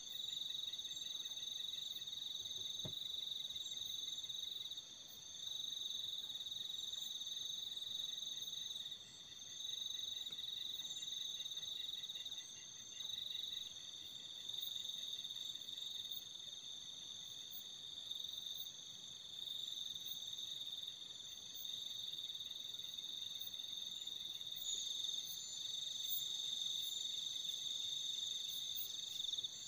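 Night insects, crickets or similar, trilling steadily in a continuous high-pitched chorus, swelling and dipping slightly in level.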